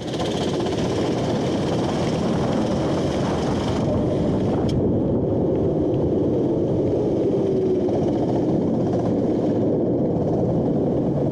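Go-kart engine running on a wet track, heard as a steady dense rush with a faint engine note that drops a little about halfway through.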